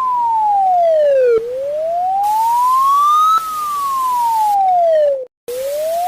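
Electronic siren wailing: a single clean tone sweeping slowly up and down in pitch, about two seconds each way. It cuts out briefly about five seconds in, then starts rising again.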